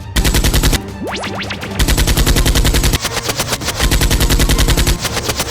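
Automatic gunfire sound effect in three rapid bursts of evenly spaced shots, the second the longest.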